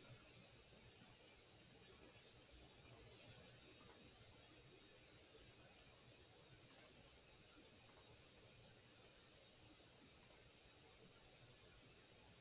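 Computer mouse clicking: about seven pairs of quick sharp clicks at irregular intervals, over faint room hiss.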